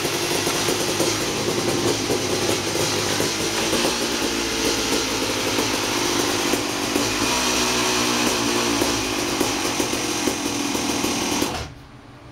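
KTM 380 SX single-cylinder two-stroke engine running hard on a rear-wheel dyno, its pitch rising and falling as it is revved. The engine sound stops abruptly near the end, leaving a quieter fan hum.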